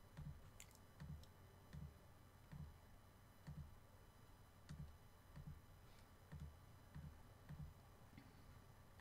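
Faint computer mouse clicks, each with a soft low thump, coming about once a second as vertices are placed one after another.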